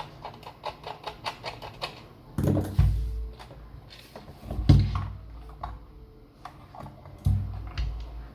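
Typing on an AlphaSmart Neo2's keyboard: a quick run of key clicks, about five a second, for the first two seconds, then three heavier thumps among scattered keystrokes.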